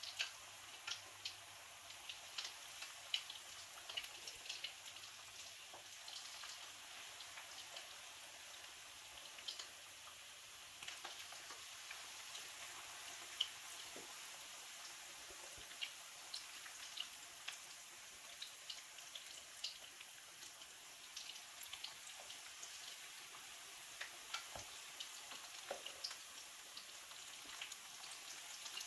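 Chicken frying in hot oil: a faint, steady sizzle with frequent small, irregular pops and crackles.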